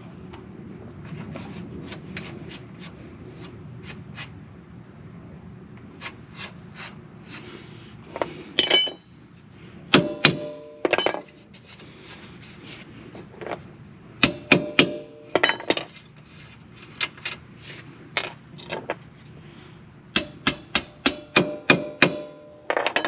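Hammer blows on metal during axle removal: scattered single knocks, then clusters of strikes, some of them ringing, and a quick run of about a dozen blows near the end.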